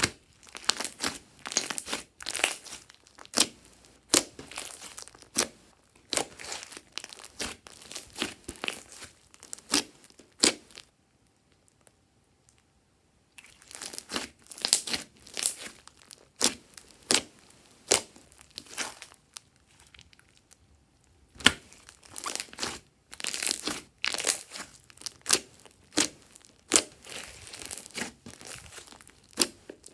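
Glossy slime being squeezed and stretched by hand, giving runs of sticky clicking and crackling that stop twice for a couple of seconds.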